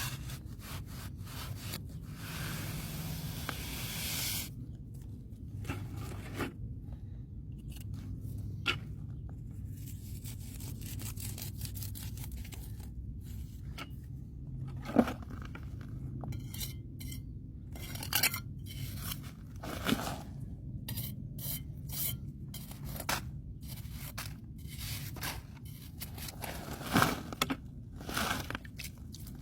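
Repeated scraping and rubbing of tools at work, broken by a few short sharp knocks, over a low steady hum.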